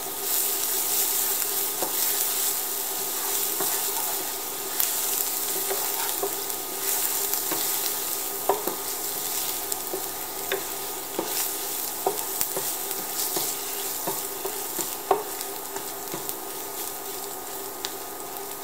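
Crushed garlic sizzling as it fries in vegetable oil in a nonstick pan, stirred with a wooden spatula that knocks and scrapes lightly against the pan now and then.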